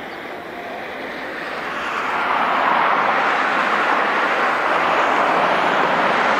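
Jet airliner engines, a broad noisy rush that grows louder over about a second and then holds steady.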